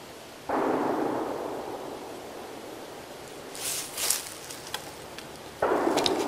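Two distant gunshots rolling through the woods, each starting suddenly and fading slowly as it echoes; the first about half a second in, the second near the end, cut off short. Light rustling between them.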